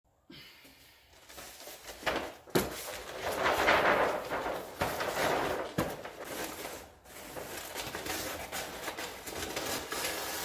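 Large sheets of brown paper being moved and handled: rustling and crinkling that swells and fades, with a few sharp knocks as the sheets bump.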